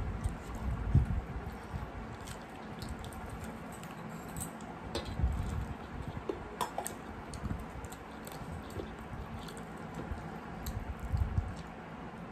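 Two people eating rice and chicken curry with their hands: chewing, and fingers mixing and squishing rice on metal plates, with scattered small clicks and taps.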